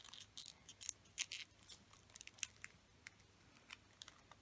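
Origami paper being handled and creased by fingers as a folded flap is tucked into a pocket: faint, scattered crisp rustles and ticks, more of them in the first half.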